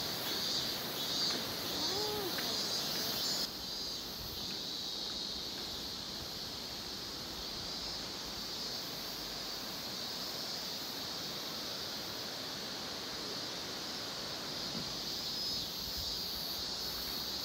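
Outdoor summer ambience: insects buzzing steadily in a high band over a constant rushing noise. The insect sound drops abruptly about three and a half seconds in, and the rushing carries on.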